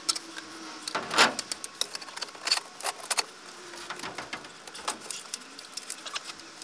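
Stainless steel twin-wall flue pipe clinking and scraping metal on metal as it is lifted and slotted onto the pizza oven's flue collar, a run of light clinks and knocks with the loudest knock about a second in.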